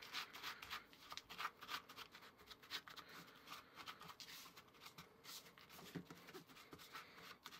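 Faint, rapid scratching and rustling of a small spatula stirring dry rolled oats and a crumbly flour-and-shortening mixture in a small plastic bowl.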